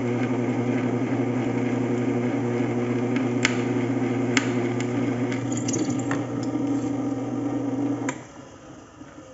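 Bench drill press motor running steadily while a thin pilot bit drills into the rivet head holding a worn front ball joint in its control arm, with a few sharp ticks; the motor is switched off about eight seconds in and spins down.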